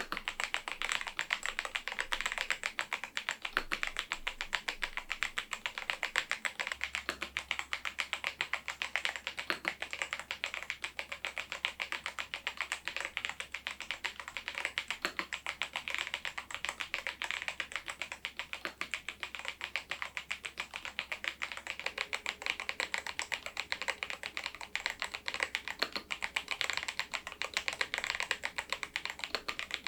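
Continuous typing on a Machenike K500 PRO mechanical keyboard with its stock switches and keycaps: a steady stream of key clicks, several a second.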